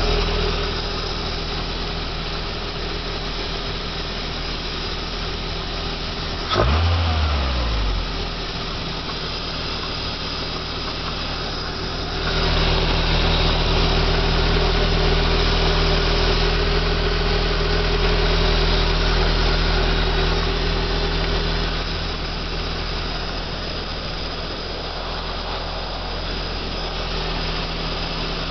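Toyota MR2's smallport 4A-GE four-cylinder engine idling steadily, with a click and a short blip of engine speed about six and a half seconds in. It runs louder from about twelve to twenty-one seconds in.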